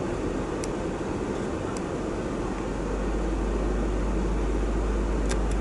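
Steady engine and road noise heard from inside a moving vehicle's cab, a low rumble under an even hiss.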